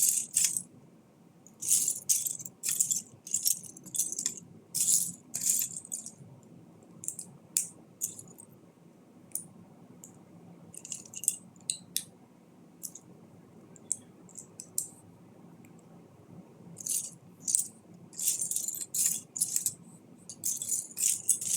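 Loose plastic Lego pieces rattling and clicking against each other as a hand sifts through a pile of bricks. The rattles come in bursts with short pauses, quieten for a few seconds in the middle and grow busier again near the end.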